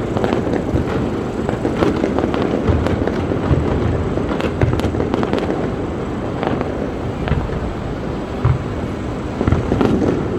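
Large fireworks display going off continuously: a dense run of overlapping booms, bangs and crackling shell bursts, with no let-up.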